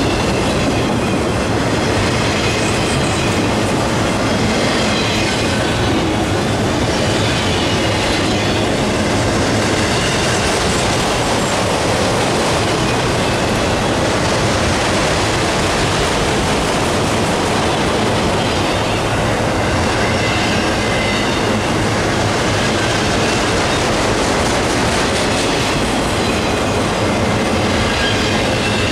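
Freight train of autorack cars rolling past: a loud, steady rolling noise of steel wheels on rail, with a faint high wheel squeal that comes and goes several times.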